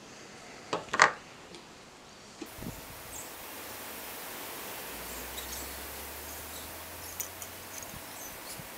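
Two sharp metallic clicks about a second in as a small stamped-steel lawn mower valve cover is handled, then steady outdoor background hiss with a few faint ticks as the cover is set in place on the engine.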